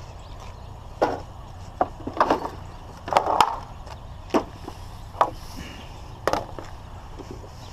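Scrap being handled and loaded: about seven sharp, irregular knocks and clatters spread over five or six seconds.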